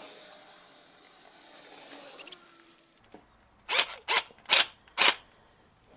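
A hand tool working a rubber fuel hose: faint handling and a quick double click, then four short, sharp strokes about half a second apart.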